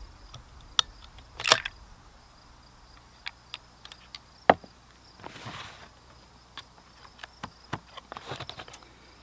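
Bolt of a Browning X-Bolt rifle being worked after a shot: scattered sharp metallic clicks and clacks, the loudest about four and a half seconds in. Near the end come lighter clicks and rustling as the cardboard cartridge box is handled. Insects trill faintly throughout.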